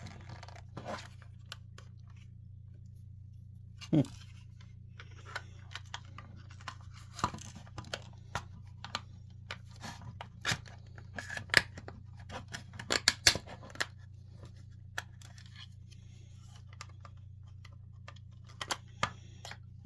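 Plastic casing of a Kidde Nighthawk carbon monoxide alarm being pried and worked at: irregular clicks, scrapes and sharp snaps, the loudest cracks about four seconds in and in a cluster a little past the middle, over a steady low hum.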